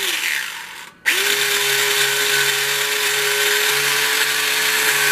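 Electric motor of a Carrera 1/32 analog slot car whining at speed while held by hand on the track, running in reverse as an analog car does on a digital track. A short run winds down, then about a second in the motor starts again and runs at a steady whine.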